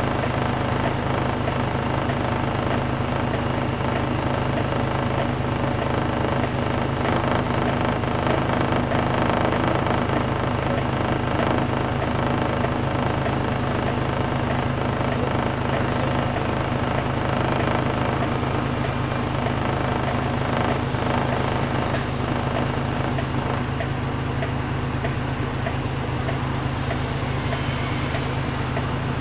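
City bus running along, heard from inside the passenger cabin: a steady engine drone with road noise.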